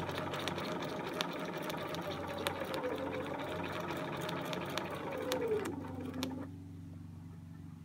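Domestic sewing machine stitching free-motion ruler quilting, its motor running at a steady speed with quick needle ticks. About five and a half seconds in the motor slows, its whine dropping in pitch, and the stitching stops, leaving a low hum.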